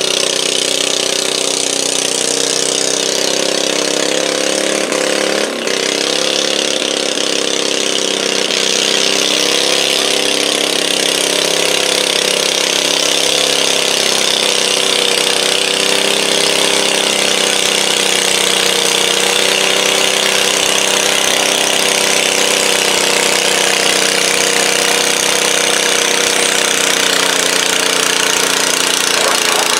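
Small garden tractor engine held at high throttle while pulling a weight-transfer sled, a steady engine note under load with a brief dip about five and a half seconds in.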